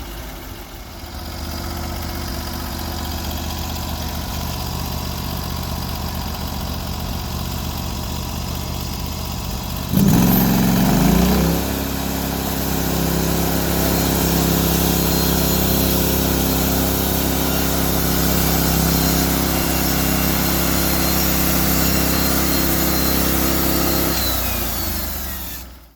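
Engine of a Norwood HD36 portable band sawmill running steadily at low speed, then revving up sharply about ten seconds in and holding a higher, louder steady speed. It fades out near the end.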